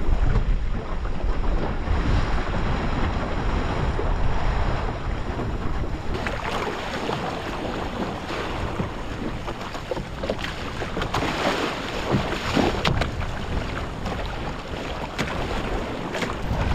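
Wind buffeting the microphone over the rush and splash of water along the hull of a small sailing dinghy under way in a choppy sea.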